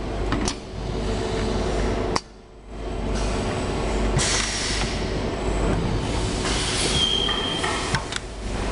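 Automatic assembly machine for transport safety parts running: a steady machine hum with swells of hissing and sharp clacks, one about half a second in and another near the end. The level drops briefly about two seconds in, and a short high whine sounds near the end.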